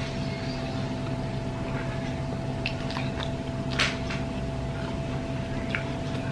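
A person eating: chewing, with a few short wet clicks and smacks, the loudest a little past the middle, over a steady room hum.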